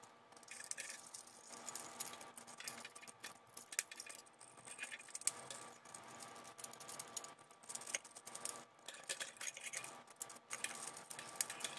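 Faint, irregular clicking and clacking of 3D-printed plastic linkage parts being handled, as the second leg pair is worked onto the Strandbeest model's crankshaft.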